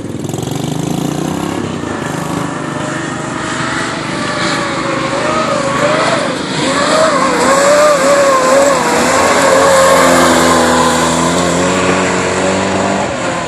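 Small-block V8 of a Street Stock race car lapping a dirt oval, its engine note repeatedly rising and falling in pitch, loudest a little past halfway through as the car comes closest.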